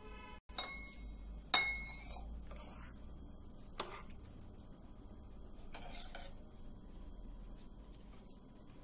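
Steel spoon scraping and clinking against a pan while scooping out thick rava kesari. The loudest is a ringing metal clink about a second and a half in, with a softer knock near four seconds.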